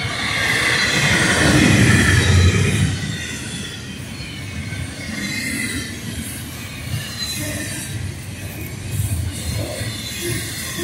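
Double-stack container freight train rolling past, its wheels rumbling steadily on the rails. A high-pitched wheel squeal is loudest in the first three seconds, then eases off.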